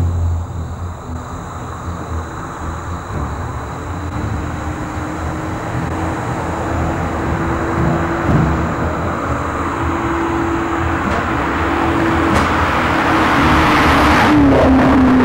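Chevrolet Camaro approaching, its engine and tyres growing steadily louder, then passing close about 14 seconds in, where the engine note drops in pitch as it goes by.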